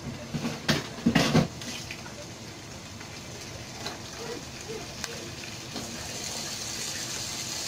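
Pieces of beef rib sizzling in hot oil in a nonstick wok as more pieces are laid in, the sizzle growing a little louder toward the end. A few sharp clatters about a second in.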